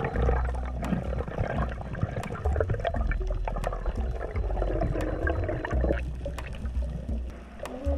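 Underwater sound heard by a camera in its housing: water rushing and swirling as the diver moves, with scattered sharp clicks.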